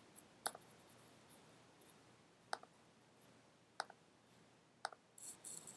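Faint computer mouse clicks: four single clicks, one to two seconds apart, over near-silent room tone.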